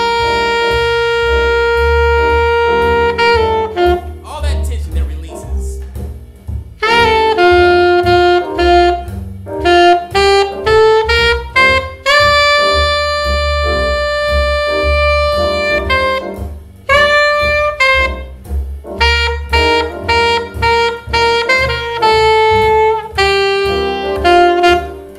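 Saxophone playing a jazz line in time over a bass accompaniment. It holds long notes near the start and in the middle, with quicker phrases between them. It places the non-chord tones 2, 4 and 6 on downbeats and resolves them to chord tones, building tension and release.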